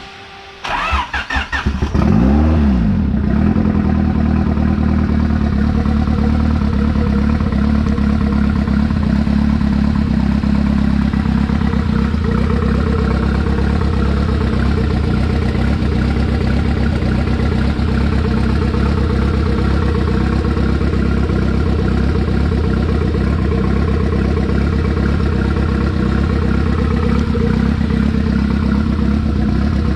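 Freshly rebuilt turbocharged Honda B18 four-cylinder engine cranking on the starter, catching about two seconds in with a brief rev, then idling steadily and super loud. This is its fourth start after the rebuild, before the rings are broken in.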